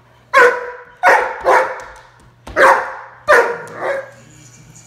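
Doberman puppy barking: six sharp barks in two groups of three.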